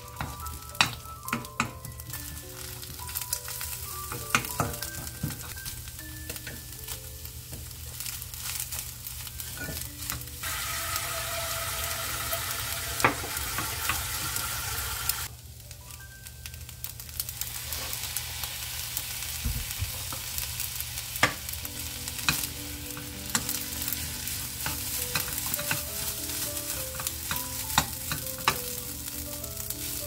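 Egg, anchovies and rice sizzling in a frying pan as they are stir-fried into fried rice, with a spatula stirring and clicking against the pan. The sizzle grows louder for about five seconds midway, and soft background music plays underneath.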